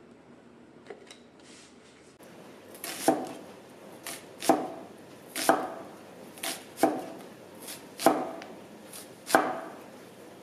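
Cleaver slicing an onion on a wooden chopping block: sharp knocks of the blade striking the wood, about one a second, starting about two seconds in after a few faint clicks.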